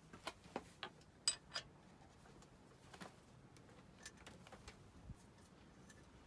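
Light metallic clicks and taps of a spanner being fitted to and worked on the auxiliary belt tensioner bolt, about five in quick succession in the first second and a half, then a few scattered ones.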